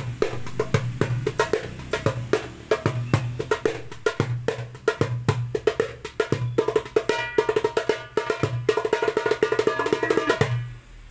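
A 9-inch darbuka with a Remo mylar head played by hand in a steady rhythm: deep bass strokes from the centre mixed with sharp, ringing edge strokes and stretches of very fast rolled strokes. The playing stops about half a second before the end.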